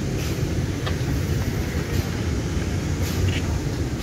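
Vintage two-axle passenger coaches rolling slowly past on track: a steady low rumble of steel wheels on rail with a few faint clicks and squeaks.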